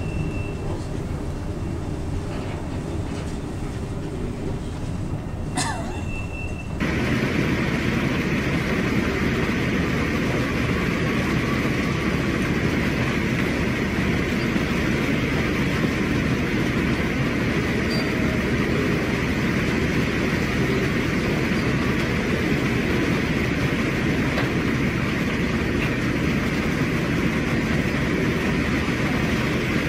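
Steady rushing and rumbling noise of storm wind and heavy seas heard on board a ship. About seven seconds in it cuts suddenly to a louder, hissier rush.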